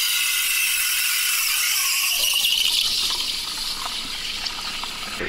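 Espresso machine steam wand hissing steadily in a stainless steel pitcher of milk, steaming and frothing it for latte art. A high tone in the hiss grows stronger after about two seconds.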